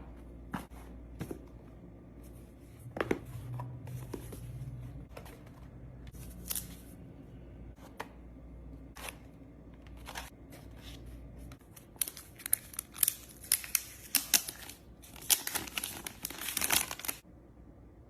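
Packaging of a phone box being handled and opened: paper and plastic tearing and crinkling, with scattered clicks and taps. These come thick and fast for about five seconds near the end.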